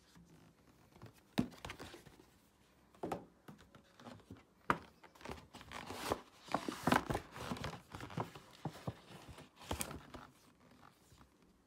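Paper shopping bag rustling and crinkling while cardboard iPhone boxes are handled, with several sharp taps of the boxes on a table. The rustling is thickest about halfway through.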